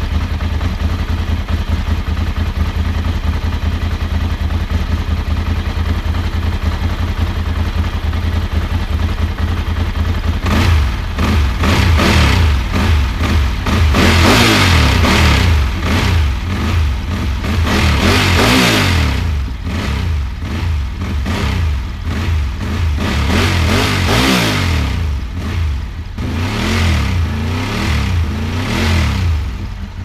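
Ducati 748's 90-degree V-twin engine idling steadily for about ten seconds, then revved several times, its pitch rising and falling with each blip of the throttle.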